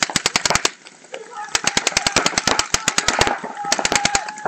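Paintball markers firing rapid strings of shots, about ten a second, in three bursts: a short one at the start, a longer one from about one and a half to three and a half seconds in, and a brief one near the end.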